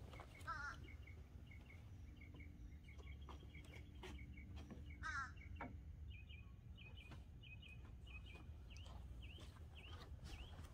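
Faint birds calling: a harsh, wavering call about half a second in and again around five seconds in, among runs of short repeated chirps that turn to quick rising-and-falling calls, about two a second, in the second half.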